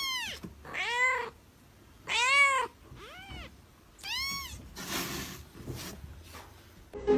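A cat meowing five times, each meow rising then falling in pitch, roughly a second apart; the fourth is fainter.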